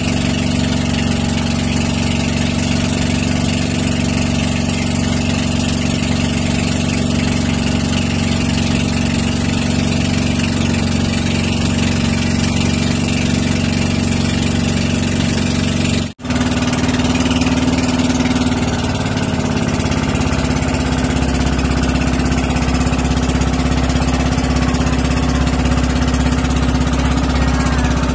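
Engine of a motorized outrigger boat (bangka) running steadily under way, loud and close. The sound drops out for an instant about sixteen seconds in, and the engine note shifts slightly afterwards.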